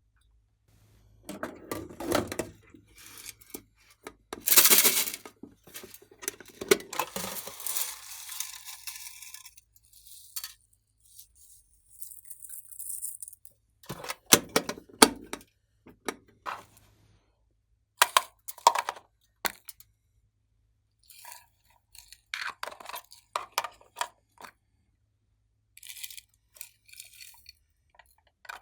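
Glossy slime being squished and mixed by hand: irregular sticky crackles, pops and clicks in short bursts, with a longer, louder stretch of crackling from about four to nine seconds in.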